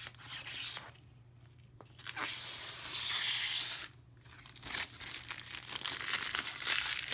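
Protective plastic film being peeled off a new PC case panel: a short rip at the start, one long, loud, steady peel lasting nearly two seconds, then a stretch of crackly ripping as the rest comes away.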